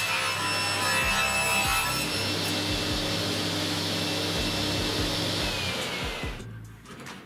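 Table saw ripping a thin strip off a board with the blade running at full speed, then running free. Near the end it is switched off and winds down with a falling whine.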